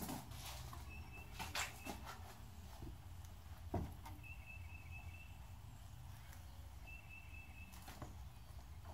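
A few sharp knocks and faint clatter from objects being handled, with a bird outside repeating a short high trill three times.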